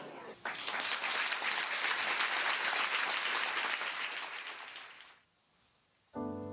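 Audience applauding, starting about half a second in and fading away after about four seconds. Near the end a grand piano begins playing.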